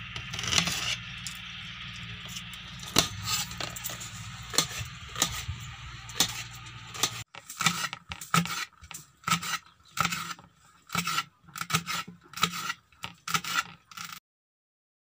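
Kitchen knife chopping onion on a steel plate: a run of sharp metallic taps and scrapes as the blade strikes the plate. The sound stops abruptly shortly before the end.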